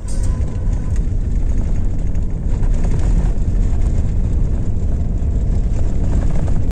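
A car driving on a snow-covered road, heard from inside the cabin: a steady low rumble of engine and tyres.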